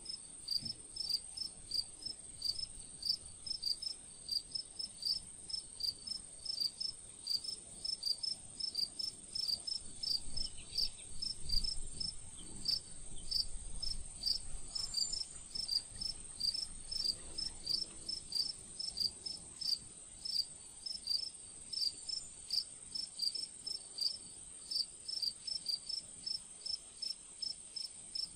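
Night insects chirping: short, high chirps repeating evenly about twice a second over a steady high-pitched trill.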